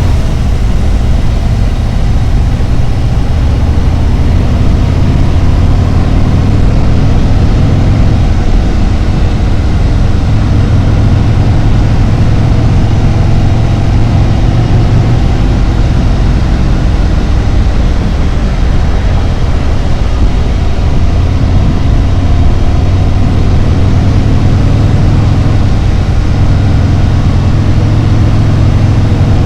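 Harley-Davidson Road Glide's V-twin engine running steadily on the move, a loud, low, even engine note.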